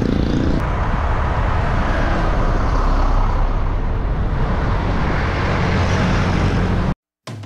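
Steady rushing wind on the microphone with road traffic noise, heard while riding a bicycle, that cuts off abruptly near the end.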